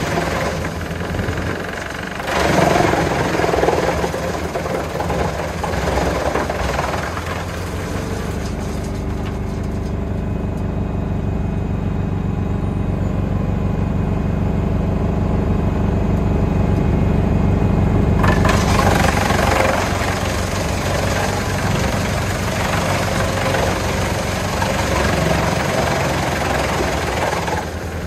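Valtra T190 tractor engine working steadily under load, driving a Junkkari HJ500 wood chipper. Wood is being chipped for the first several seconds with a dense noisy rush over the engine. The chipper then runs empty for about ten seconds with only the steady engine hum, and chipping starts again about two-thirds of the way through.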